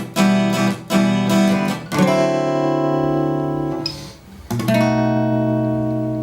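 Background music: an acoustic guitar strumming a few chords, then a last chord, a little past the middle, left to ring out and slowly fade.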